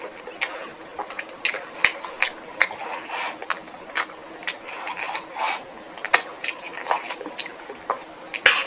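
Close-miked eating of crispy Korean fried chicken: irregular crunches and clicks of chewing with wet mouth sounds between them.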